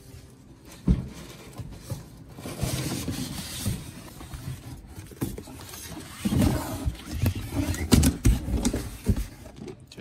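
Cardboard box and its packing being opened and handled: flaps and a cardboard sheet scraping and rustling, with a sharp knock about a second in and a run of thumps in the second half.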